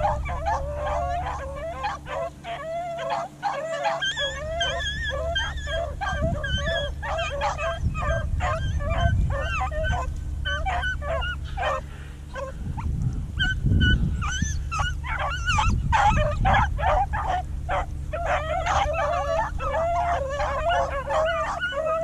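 Beagles baying and yelping in a near-continuous run of short, wavering calls: rabbit dogs giving tongue as they run a rabbit's trail.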